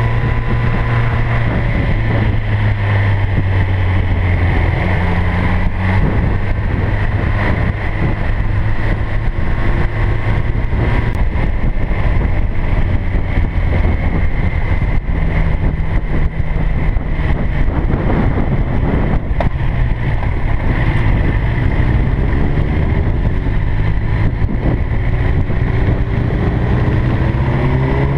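Motorcycle engine running at a steady cruise on the road, with wind rushing over the onboard microphone; near the end the engine pitch rises as it accelerates.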